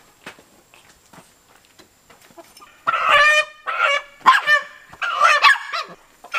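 Faint footsteps, then about three seconds in a chicken breaks into loud, repeated squawking alarm calls as it is grabbed by hand in its coop.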